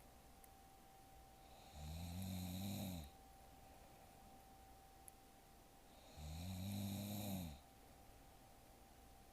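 A woman snoring in her sleep: two snores about four seconds apart, each lasting just over a second. Each has a low buzzing pitch that rises and then falls.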